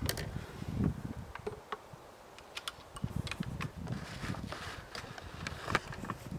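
Scattered light clicks and knocks of a wooden catapult being handled while its cup is loaded, over an uneven low rumble.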